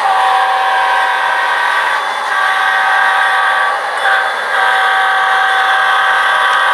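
Sound-equipped model diesel locomotive's horn blowing several long chord blasts with short breaks between them, over the steady hiss of the running train.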